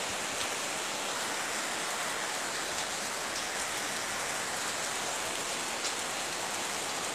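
Heavy rain pouring steadily, a constant even hiss with a few faint drop ticks.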